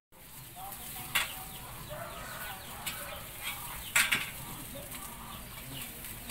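Chickens clucking and chirping in the background, with a few sharp clicks, the loudest a double click about four seconds in.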